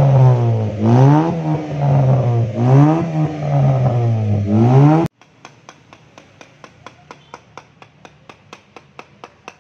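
Honda Brio's four-cylinder engine revved in repeated blips through an aftermarket HKS racing muffler, with a deep, bassy exhaust note. It cuts off suddenly about five seconds in, giving way to faint regular clicking, about three clicks a second.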